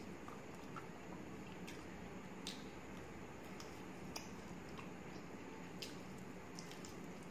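A person chewing a mouthful of rice and chicken liver, with scattered short, sharp wet mouth clicks and smacks over a steady low hum.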